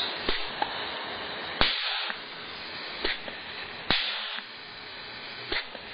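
Snapp pneumatic vacuum rivet gun cycling on shop air: three sharp snaps, each followed by a short rush of air, over a steady hiss. The hiss is air flowing back out of the tool, which the owner isn't sure is normal.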